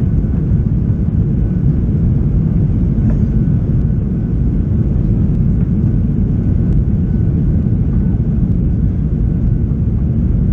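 Boeing 737-800 cabin noise during the climb just after takeoff: a steady, loud, low rumble from its CFM56-7B engines at climb thrust and the airflow, heard from a window seat over the wing, with a faint steady whine above it.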